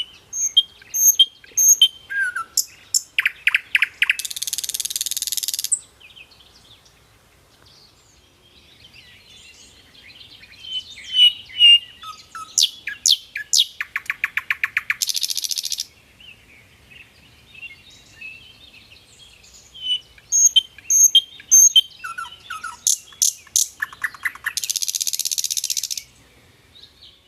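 Nightingale singing three song phrases a few seconds apart. Each phrase is made of varied whistled notes and fast trills of repeated notes, and ends in a harsh, buzzy rattle.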